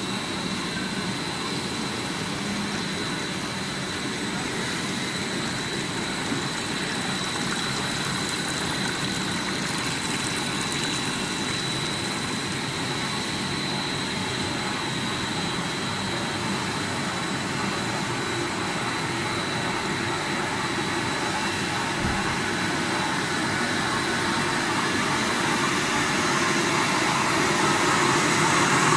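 Composite cord strap production line machinery running: a steady mechanical hum and hiss with a constant high-pitched whine, growing slightly louder near the end.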